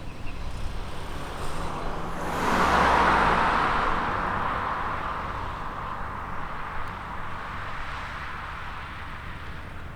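A vehicle passing close by: a rushing noise swells quickly to its peak about three seconds in, then slowly fades away, over a steady low rumble.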